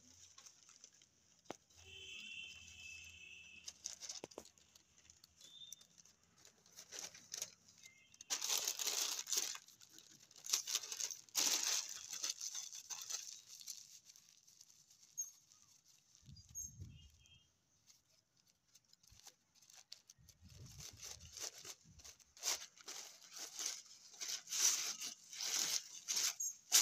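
Sheets of newspaper rustling and crinkling as they are folded and pressed flat by hand, in irregular bursts that are busiest about a third of the way in and again near the end.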